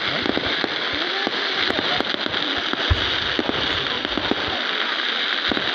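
Fireworks going off: many rapid short pops and crackles over a steady hiss, with one deeper, louder bang about three seconds in.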